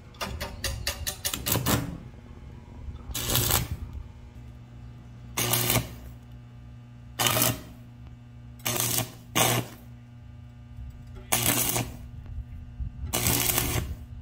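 Stick (arc) welding: seven short bursts of crackling arc, each under a second, as tack welds are laid on a steel joint, over a steady low hum. A quick run of clicks fills the first two seconds.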